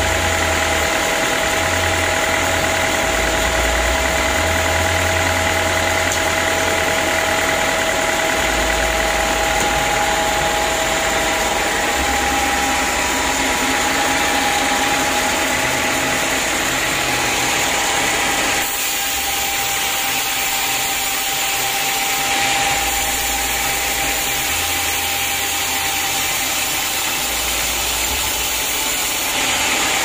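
Homemade band sawmill running steadily: a continuous mechanical hum with a few steady whining tones from the motor and blade. About two-thirds of the way through, the sound changes abruptly and becomes thinner in the low end.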